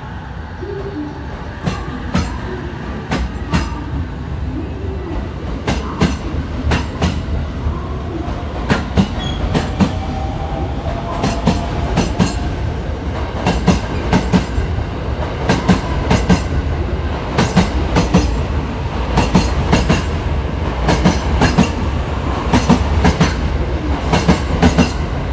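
A JR West 683 series electric multiple-unit train pulling out past the platform, picking up speed. Its wheels click over the rail joints more and more often and louder, over a steady deep rumble, with a faint rising whine about halfway through.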